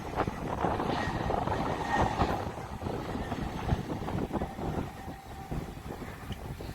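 Jet airliner engines rumbling at the airfield, with wind buffeting the microphone. A faint whine rises out of the rumble twice.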